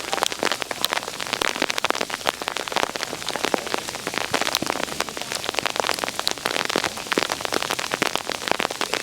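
Rain pattering on surfaces close by, a dense, irregular run of sharp drop ticks over a steady hiss, as the snowfall turns to rain.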